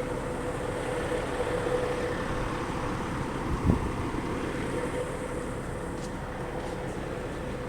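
Steady road and engine noise of a car heard from inside the moving vehicle, with one short low thump about three and a half seconds in.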